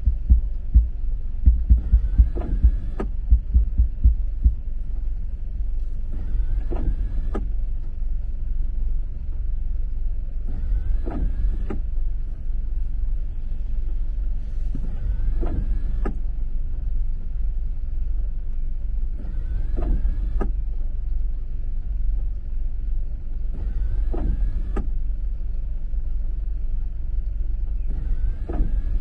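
Car windscreen wipers on intermittent, making a pair of strokes, out and back, about every four seconds, each with a short rising squeak of the blade on wet glass. Under them is a steady low rumble inside the stopped car's cabin.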